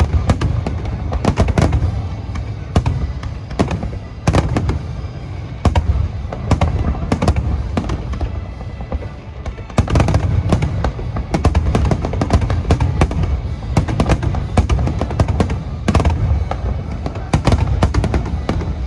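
Aerial fireworks shells bursting in a rapid, continuous barrage, several sharp bangs a second over a constant deep rumble, with music playing along.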